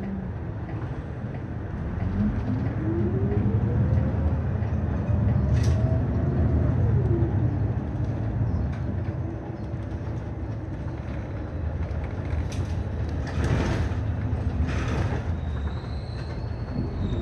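City bus heard from inside the cabin while driving: steady low engine rumble with a drivetrain whine that rises in pitch for a few seconds as the bus accelerates, then drops as it eases off, and a few short rattles or knocks. A faint high steady tone comes in near the end.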